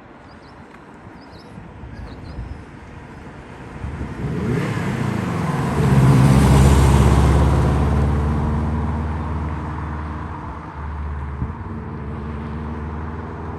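Subaru Impreza WRX's turbocharged flat-four engine under acceleration. The engine note climbs in pitch about four seconds in, is loudest a couple of seconds later, then gradually eases off as the car settles to a steadier speed.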